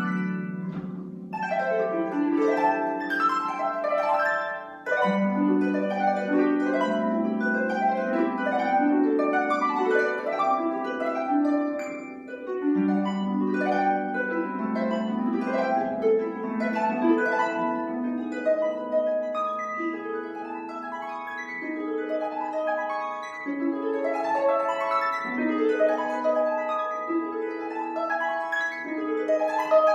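Solo concert harp playing classical music: quick plucked runs and arpeggios with the notes left ringing. Deep bass notes are sounded afresh about five and thirteen seconds in.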